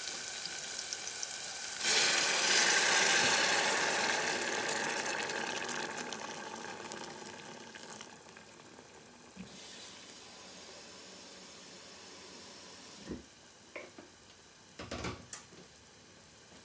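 Sautéed onions and tomatoes sizzling in a stainless steel pot. About two seconds in, water poured from an electric kettle hits the hot pan with a loud hissing rush, which fades over several seconds as the pan cools. A few light knocks come near the end.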